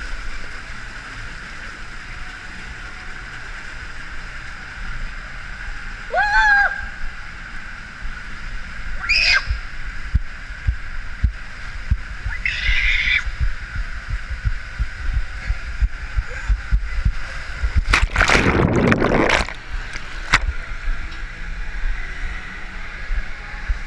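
Echoing indoor water-park noise of running, splashing water, with short high-pitched shrieks about six and nine seconds in. A loud rush of splashing water comes about eighteen seconds in and lasts a second or two.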